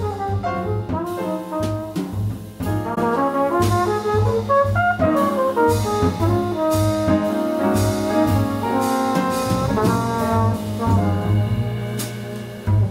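Jazz quartet playing: a flugelhorn solos in quick lines of short notes over piano, walking double bass and drums with cymbals.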